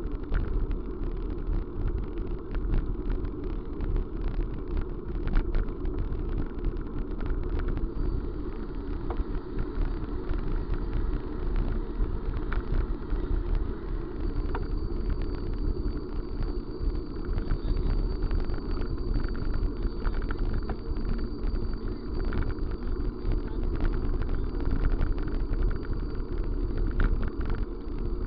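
Steady rumble of a vehicle in motion, with many small rattles and clicks. A faint thin high whine joins about halfway through.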